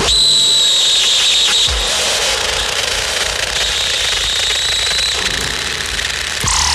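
Harsh noise music from a Eurorack modular synthesizer: a dense hissing wash with a high, steady whistle-like tone that cuts in at once, drops out after about a second and a half, and returns for another second and a half. Near the end a falling sweep comes in.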